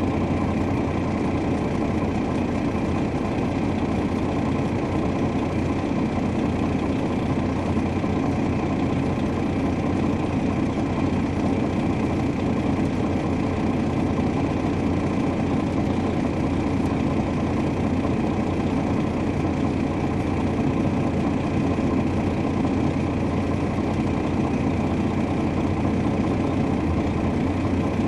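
The Detroit Diesel Series 60 inline-six diesel of an MCI D4500 coach running steadily with no revving, heard from inside the bus.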